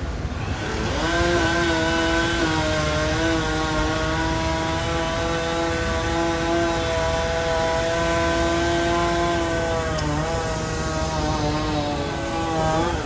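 Gas-powered two-stroke power saw revving up about a second in and held at a high, steady whine, dipping briefly twice near the end.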